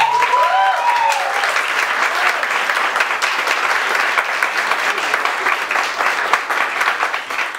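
Audience clapping steadily after the dance music stops, with a few high whooping cheers over the first second or so.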